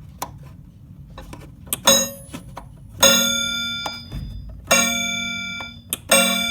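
Commodore chiming clock's hammers striking its chimes: four ringing strikes roughly a second to a second and a half apart, each fading slowly, with a few light clicks before them. The owner says the hammers are broken.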